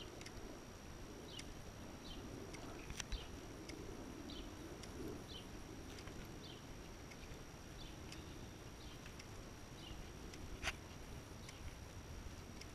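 Faint sounds of a puppy walk on a leash along a sidewalk: light footsteps and scuffing, sharp clicks now and then (the loudest twice), and short high chirps repeating about once a second.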